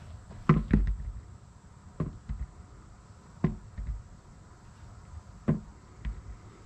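A handful of sharp knocks and taps, mostly in pairs about a second and a half apart, like things being handled or set down on a wooden table.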